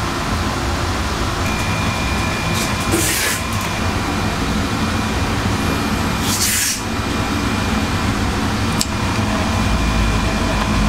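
Steady low hum of commercial kitchen machinery such as a bun toaster and extraction fan, with a faint high whine, two brief hisses about three and six and a half seconds in, and a small click near the end.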